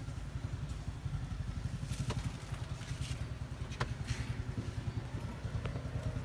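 Vehicle engine idling, a steady low pulsing rumble, with a couple of faint clicks about two and four seconds in.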